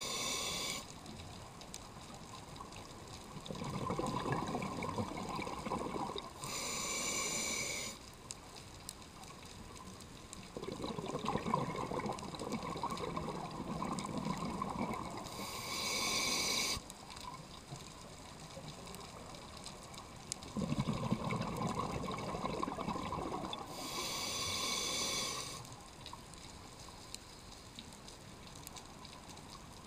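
Scuba diver breathing through a regulator underwater: a few seconds of bubbles burbling out on each exhale, then a short sharp hiss of air on the inhale, about three breaths roughly nine seconds apart.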